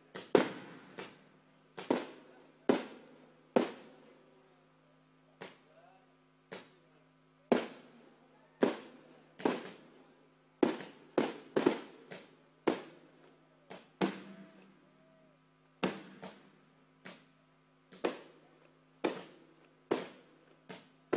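Aerial fireworks shells bursting overhead in an irregular string of sharp bangs, roughly one a second, each trailing off in a short echo, over a steady low hum.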